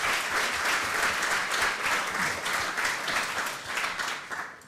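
Audience applauding, many hands clapping; the applause dies away near the end.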